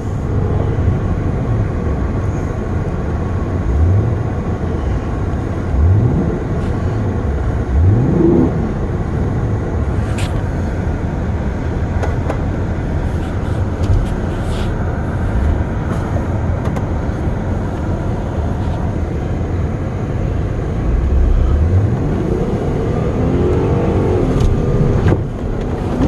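Honda Odyssey minivan's engine revving up again and again, with several rising climbs in pitch, as the driver works the van out of deep snow. The sound is heard from inside the cabin.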